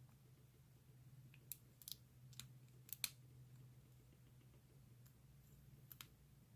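Faint, scattered clicks of a lock pick and tension wrench working the pin tumblers of a Master Lock 580DLF padlock, over a low steady hum.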